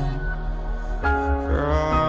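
Background song between sung lines: held notes over a pulsing low bass that comes in about a second in.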